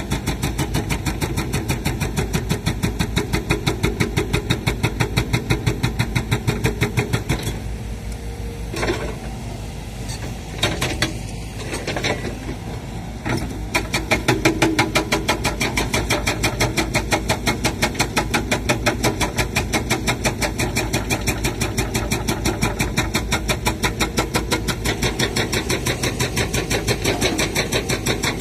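Sumitomo SH130 excavator's diesel engine running under work, a fast even pulse; it drops in level for a few seconds in the middle, where a few sharp knocks stand out, then comes back up.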